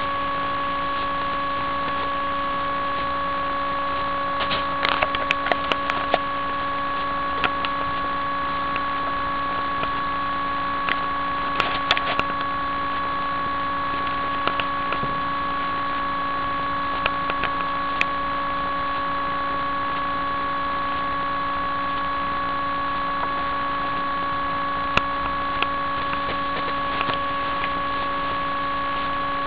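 A steady electronic hum of several held tones, with scattered sharp clicks and taps from the recording device being handled, clustered about five and twelve seconds in.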